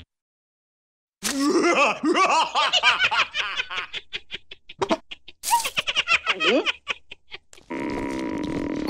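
Two cartoon larvae laughing hard in quick, high, pitched bursts, starting about a second in, with a second round of laughter past the middle. Near the end the laughter stops and a steady low hum sets in.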